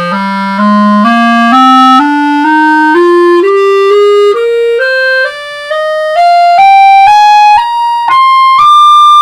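Serio Oscuro clarinet, a model built for a darker tone, fitted with red and brown color rings, playing a rising scale from the low register up to high notes, about two notes a second.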